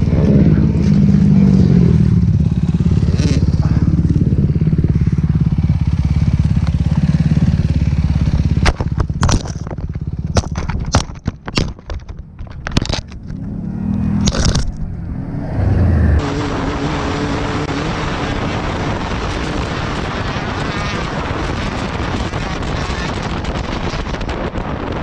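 Two-stroke Yamaha YZ250X dirt bike engine running steadily, then a run of sharp knocks and bumps as the engine sound breaks up. After a cut about sixteen seconds in, a two-stroke KTM 250 XC dirt bike is riding with heavy wind noise on the helmet-camera microphone.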